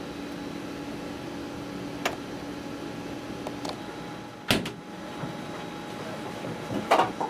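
Refrigerator door shutting with a single sharp thump about halfway through. Before it there is a low steady hum that stops, and a faint click. A short, louder noise comes near the end.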